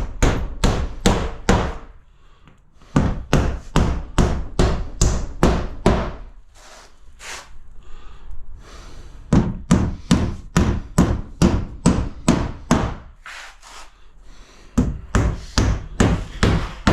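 Hammer driving nails through a cement sheet into the wall studs: quick runs of blows, about three a second, in four bursts with short pauses between them.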